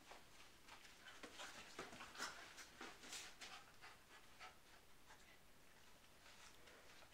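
Two poodles play-wrestling on a bed: faint scuffling and rustling of paws and bodies on the bedding, busiest in the first half.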